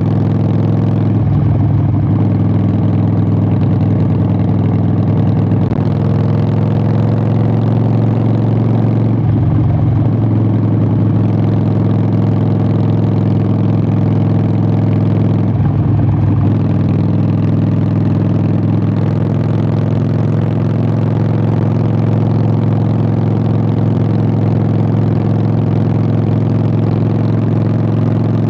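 Harley-Davidson Sportster 883's V-twin running through Vance & Hines Short Shots exhaust while riding. The exhaust note is steady, with three brief breaks about a second, nine seconds and sixteen seconds in.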